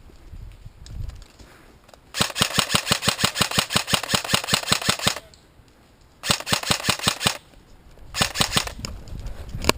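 Airsoft gun firing on full auto in three bursts of rapid clicks, about ten shots a second. The first and longest starts about two seconds in and runs for about three seconds, followed by two shorter bursts.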